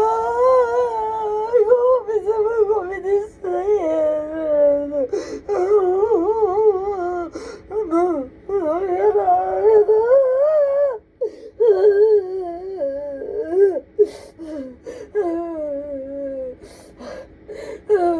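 A woman crying hard: long, high, wavering wails that break off every few seconds before starting again.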